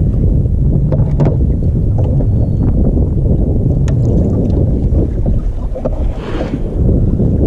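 Wind buffeting the microphone of a kayak-mounted action camera on open ocean: a steady low rumble, with a few light knocks and a brief rushing hiss about six seconds in.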